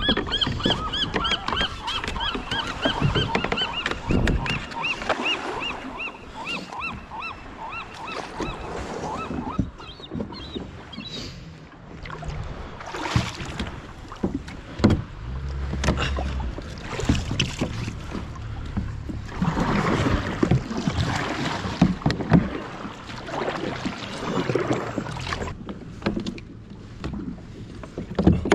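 Fishing kayak being pushed off the sand and paddled out: paddle strokes, water swishing against the hull and knocks on the hull. Over the first ten seconds a run of quick, high, repeated chirps sounds above it.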